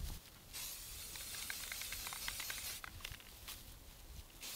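Aerosol spray-paint can hissing in two bursts, the first about two seconds long, the second starting near the end, spraying through a bundle of dry grass held against the rifle as a camouflage stencil. Light ticks and crackles from the dry grass run alongside.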